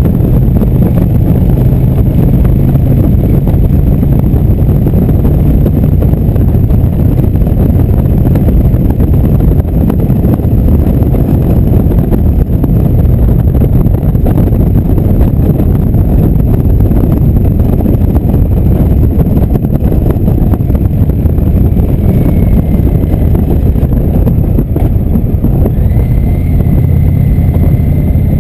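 Indian V-twin cruiser motorcycle running steadily at road speed, a low engine rumble mixed with wind rushing over the microphone.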